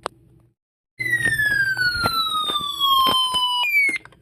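A single click, then after a short silence a high whistling tone gliding steadily downward for about three seconds, peppered with crackling clicks. Near the end it jumps back up, falls briefly again and cuts off.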